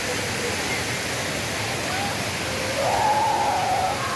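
Steady rush of fountain water jets splashing into a shallow wading pool, with a child's high-pitched call drawn out for about a second near the end.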